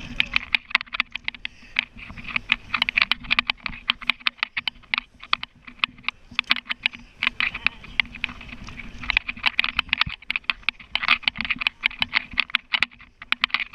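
Rapid, irregular clicking and crackling: handling noise from a chest-worn GoPro in its housing rubbing and knocking as the wearer walks, with a steady low hum underneath.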